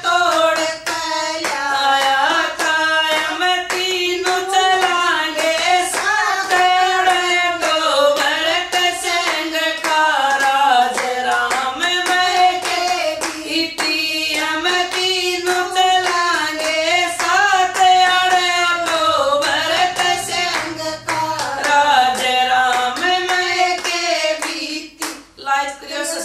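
Women singing a Haryanvi bhajan, one voice carrying the melody, with hand claps keeping a steady beat.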